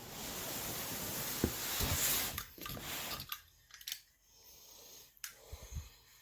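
A cardboard box and its packing being handled and opened: a loud rustling and scraping for about three seconds, then quieter scattered clicks and taps.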